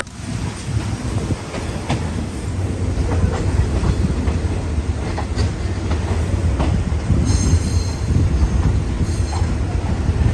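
Passenger train running on the rails: a steady low rumble with wheels clacking over rail joints. A brief high wheel squeal comes about seven seconds in and again a second or so later.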